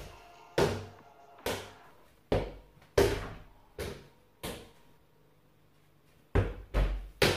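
A football bouncing on a hard floor: six bounces under a second apart, a short pause, then three quicker bounces near the end.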